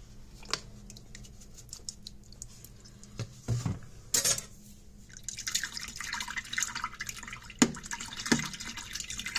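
A utensil stirring soapy water in a plastic dish: a few scattered taps and knocks at first, then from about five seconds in a busy, continuous splashing and swishing of the foamy water.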